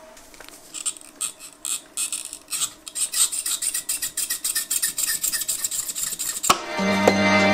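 Irregular scraping and rubbing strokes, a few a second, as a milled white acrylic mount is handled and scraped by hand on the CNC machine's bed. Electronic music comes in near the end.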